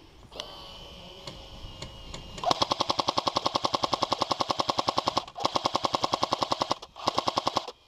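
Airsoft electric light machine gun firing full-auto in three rapid bursts of fast, even shots. A long burst starts about two and a half seconds in, followed by two shorter ones.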